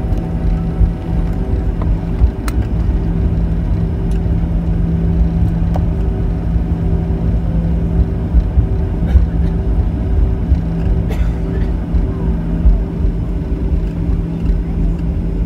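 Cabin noise of a jet airliner taxiing: a steady engine hum at taxi power over a low rumble.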